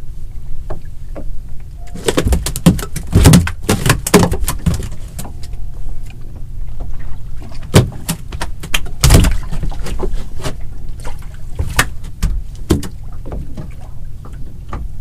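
Irregular knocks and clattering on a small fishing boat, in clusters with gaps between, over a steady low rumble.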